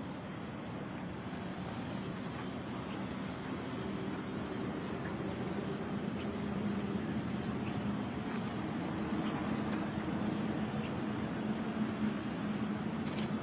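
Short, high chirps from strawberry finches (red avadavats), about ten scattered through, some in quick pairs, over a steady low hum.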